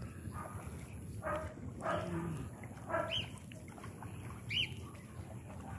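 Short animal calls, about four of them spaced over several seconds, some with a quick rise-and-fall in pitch, over a steady low rumble.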